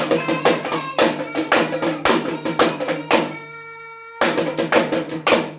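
Two small drums beaten with sticks in a quick, steady rhythm while a girl sings along. A little past halfway the drumming stops for about a second while she holds one long note, then the drumming starts again.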